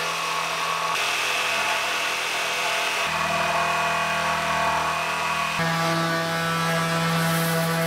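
Electric jigsaw cutting through an oak board, a steady motor whine whose pitch shifts abruptly about one and three seconds in. A little over five seconds in, a random orbital sander takes over, running against the board's cut edge.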